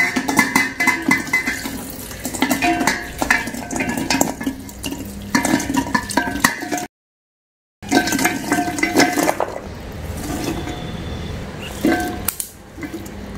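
Chopped vegetables tipped from steel bowls into a large aluminium pot of water: pieces knocking and splashing in, with the metal bowl clinking and ringing against the pot. The sound cuts out completely for about a second midway.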